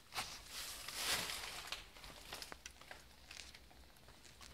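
Dry rubbing and handling sounds: a hissing scrape lasting about a second and a half near the start, then scattered light taps and clicks.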